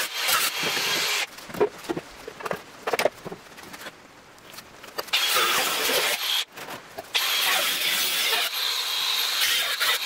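Cordless angle grinder cutting into the rusted sheet steel of a VW Beetle's rear wheel arch, running in stretches. It cuts for about a second at the start, pauses for a few seconds with scattered clicks and knocks, cuts again from about five seconds in, stops briefly near seven seconds, then carries on.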